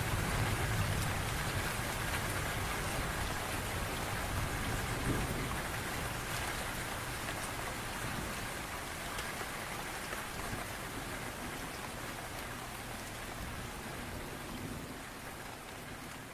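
Heavy rain pouring steadily, with scattered drips. The last low rumble of thunder dies away in the first few seconds, and the whole sound slowly fades out.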